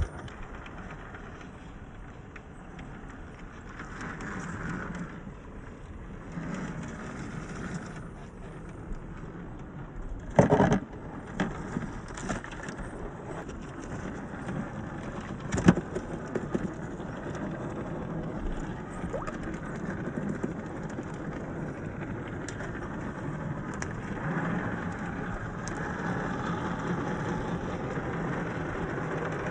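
Axial SCX10 III RC crawler driving off-road, its Hobbywing AXE550 brushless motor and geared drivetrain whining as the throttle rises and falls. Two sharp knocks stand out, about ten seconds in and again about five seconds later.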